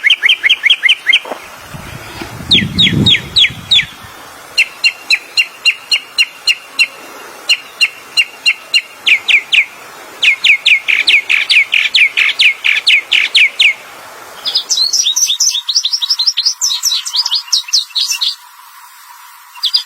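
Songbird singing bursts of rapid, sharp chirping notes, several a second, in phrases a few seconds long. About fifteen seconds in, a different, higher-pitched song takes over.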